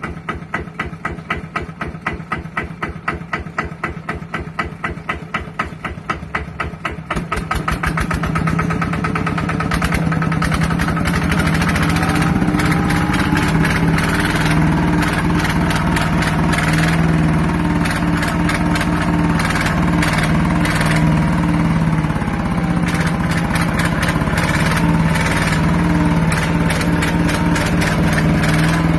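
Kubota RT120 Plus single-cylinder diesel engine idling with slow, even firing pulses, then speeding up about seven seconds in and running steadily at a higher speed for the rest of the time.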